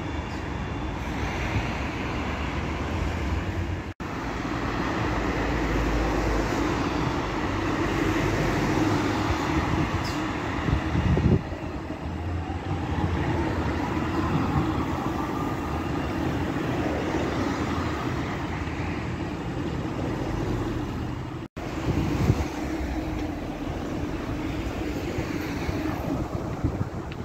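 Street traffic with a tram running along its track toward a stop, cars idling and passing alongside. An electric whine rises in pitch midway. The sound breaks off abruptly twice.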